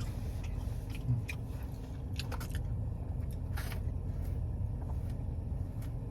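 Chewing a soft fried cheddar cheese bite, with a few short wet mouth clicks, over a steady low rumble inside a parked car.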